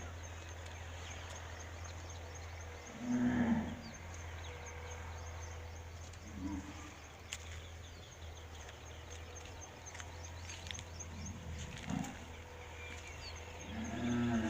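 Cattle mooing several times: a loud low moo about three seconds in, then shorter ones near the middle, about twelve seconds in, and near the end, over a steady low hum.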